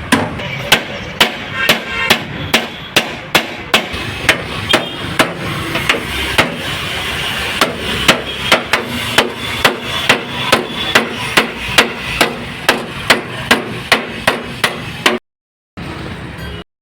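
Hammer blows on sheet metal in denting (panel-beating) work on a truck body, a steady run of sharp strikes at about three a second. The strikes break off briefly near the end.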